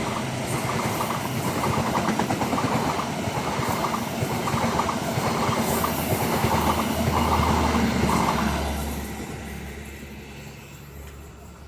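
Diesel-hauled passenger train rolling past over a level crossing, its wheels clattering over the rail joints in repeated bursts. The sound fades away over the last few seconds as the end of the train passes.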